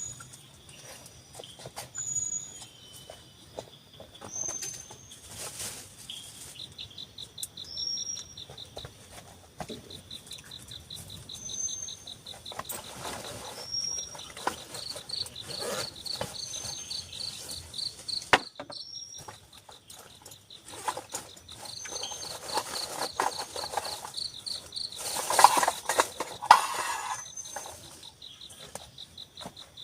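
Forest insects calling: a rapid, high pulsing trill sets in a few seconds in and keeps going, over short high chirps that repeat about every two seconds. Scattered knocks and rustling, louder for a couple of seconds near the end.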